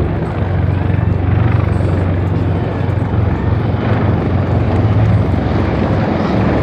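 Aircraft engine noise, a loud, steady low rumble with no clear rise or fall.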